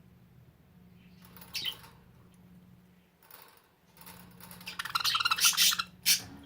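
Budgerigars chattering and squawking: a few short calls, then a dense burst of chatter about four seconds in, ending with two sharp, short calls.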